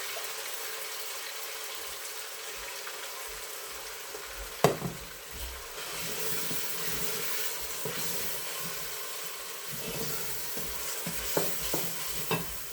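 Tomato and onion sauce sizzling in olive oil in a pan as it is stirred, with a steady hiss. A few sharp knocks, the loudest about five seconds in and two more near the end.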